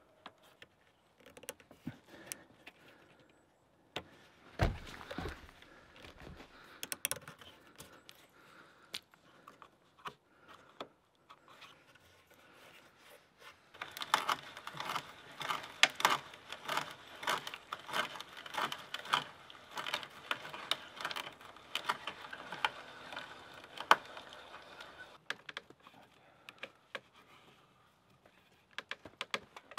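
Scattered knocks and rustles, then, about halfway through, a long run of rapid scraping and cutting as a small hand tool works the wood of a log wall.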